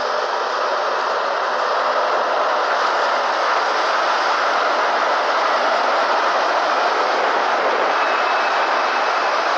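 Muddy flash-flood water surging over a gravel riverbed: a loud, steady rushing noise.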